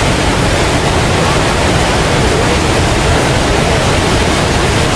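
Niagara Falls' water pouring over the falls: a loud, steady rushing noise with no breaks.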